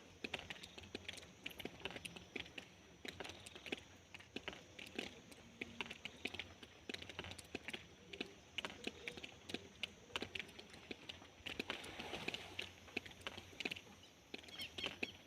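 Raindrops dripping irregularly onto a hard surface: many light, sharp ticks at uneven intervals over a faint hiss, growing denser about twelve seconds in.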